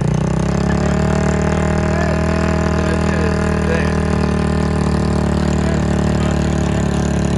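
Small off-road vehicle engine running at a steady speed, its pitch holding even throughout.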